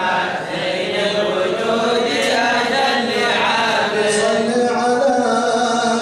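Male voices chanting devotional praise of the Prophet Muhammad at a mawlid, in long held notes that step slowly up and down in pitch.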